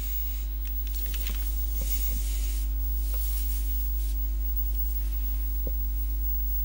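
Steady low electrical hum with a faint hiss, broken only by a few faint soft ticks.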